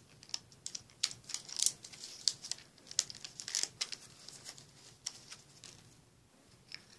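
White packaging wrap crinkling and crackling in the hands as a small gel eyeliner jar is unwrapped, in irregular bursts that thin out after about five seconds.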